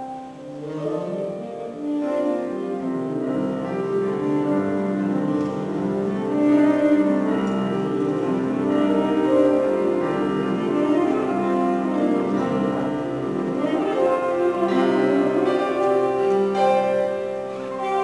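Classical chamber music of piano and bowed strings, many long held notes layered over one another. It swells from quiet to full in the first two seconds and then stays full.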